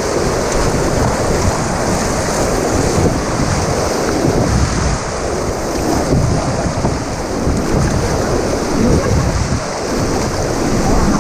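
Rushing whitewater of river rapids around a raft, with heavy wind buffeting the microphone; a loud, steady rumble.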